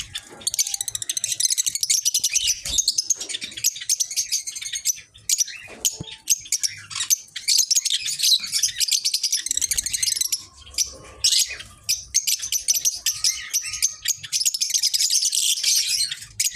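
A flock of caged lovebirds chattering continuously in rapid, high-pitched chirps.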